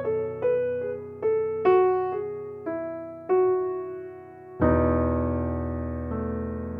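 Background music on electric piano: single melody notes struck about twice a second, then a louder held chord about two-thirds of the way in that slowly fades and shifts to another chord near the end.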